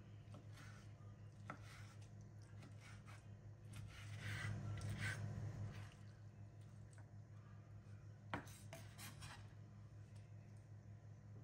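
Chef's knife chopping soft roasted green peppers on a wooden cutting board: light taps of the blade on the wood, a louder scraping rub across the board about a third of the way in, and a sharp knock later on, over a faint low hum.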